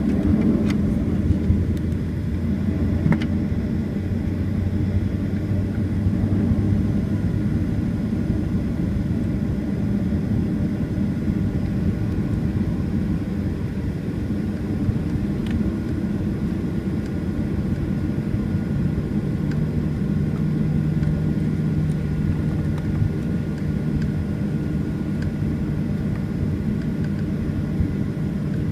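Cabin noise of a Boeing 737-800 taxiing, heard from inside over the wing: a steady rumble from its CFM56-7B engines at taxi power, with a low hum whose pitch shifts partway through. A few light knocks come in the first few seconds.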